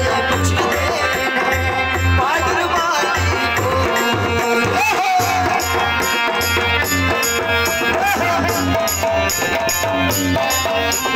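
Live Kud folk music played through a sound system: a dholak barrel drum beats a steady rhythm under a melody with a singer's voice.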